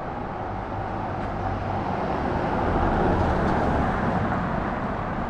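A motor vehicle passing by on the street, its tyre and engine noise swelling to a peak about three seconds in and then fading.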